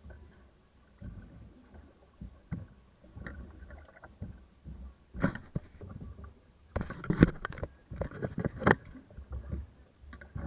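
Water slapping and knocking against a small boat's hull in rough waves, with a low wind rumble on the microphone. The loudest splashes come in a cluster about seven to nine seconds in.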